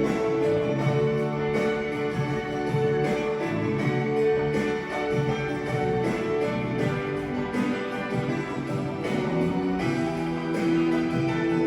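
Instrumental music with held melody notes over a steady accompaniment, without singing.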